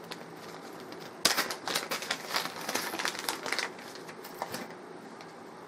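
Hard plastic clicking and rattling as a clear plastic parts case is opened and the small toggle switches inside are handled: a quick run of small clicks starting about a second in and lasting about three and a half seconds.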